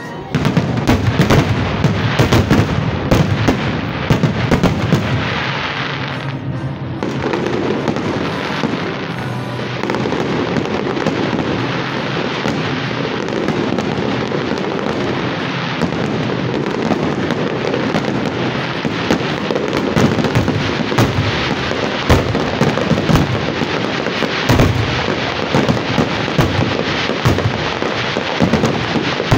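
Fireworks display finale: a dense, unbroken barrage of shell bursts and crackling, starting abruptly just after the opening with a jump in loudness.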